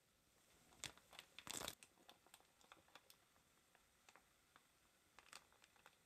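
Faint crinkling of a plastic bag as cooked soybeans are poured from it into a stainless steel pot, with a burst of crackling about one and a half seconds in, then scattered light ticks as the beans drop in.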